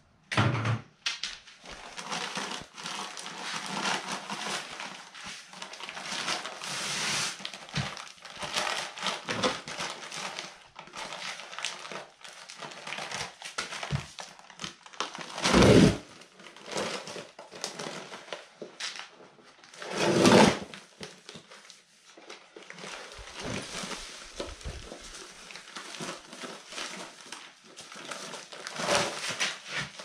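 A sack crinkling and rustling as dry cement powder is tipped and poured into a plastic bucket for pointing mortar. Two loud thuds about halfway through, some four seconds apart.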